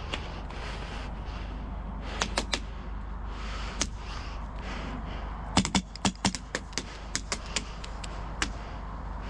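HPA airsoft rifle firing sharp single semi-auto shots: two about two seconds in, one near four seconds, then a quick string of about ten shots over two seconds, and a last shot near the end.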